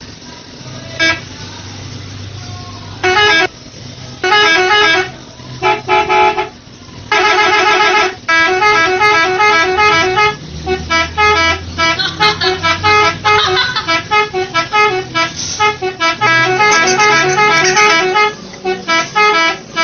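Bus telolet horn, a set of tuned air horns, playing quick stepping melodic phrases over the bus engine's low running. It starts about three seconds in with a few separate short blasts. From about eight seconds on the tune runs almost without a break.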